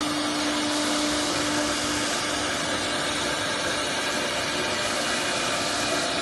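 CNC router running: a steady whirring noise with a steady hum through it.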